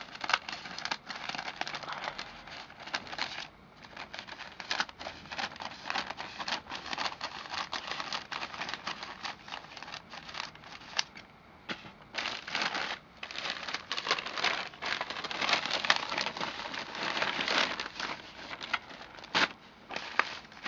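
A mailed package being opened by hand: its wrapping crinkling and crackling, with sharp rustles and tearing, pausing briefly twice.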